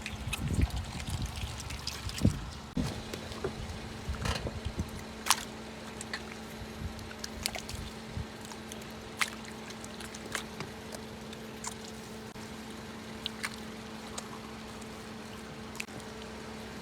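Wet crackling, popping and trickling from soft jelly-like material just crushed under a car tyre: a flurry of pops and low squelches in the first few seconds, thinning to scattered ticks and drips. A steady low hum runs underneath.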